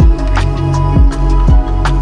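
Electronic music: deep kick drums and sharp snare hits over sustained bass and synth chords.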